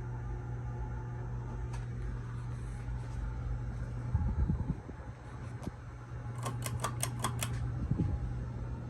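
Home Pride Hugger ceiling fan motor humming steadily. A few low thumps and scattered clicks sound over the hum, with a quick run of about six sharp clicks a little past the middle.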